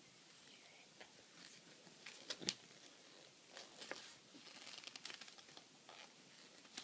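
Near silence: quiet room tone with a few faint rustles and light taps.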